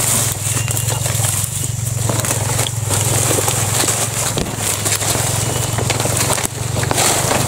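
A steady low drone, like a distant engine, held at one pitch, with a steady high buzz over it and leaves and twigs rustling and crackling close by as someone pushes through undergrowth.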